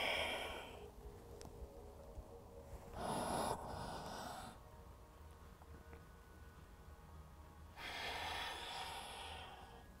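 A woman's slow, deep yoga breaths, heard as soft rushes of air: one dying away at the start, then two long breaths, about three seconds in and near the end, each lasting a second or two, paced with her cat-cow spine movements.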